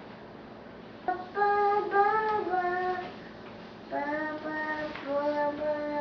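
A young child singing two short phrases of held notes, each note steady and stepping to the next, with a pause of about a second between the phrases.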